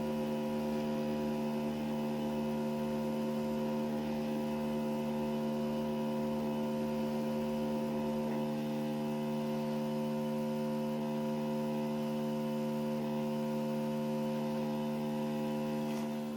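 Hot air soldering station's blower running with a steady, even hum while it heats a laptop's AMD Radeon graphics chip to reflow its solder. The hum stops shortly before the end.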